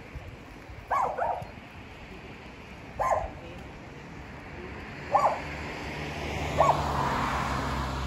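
A dog barking single short barks about every two seconds. From about five seconds in, a low rumble and a rising hiss build up underneath.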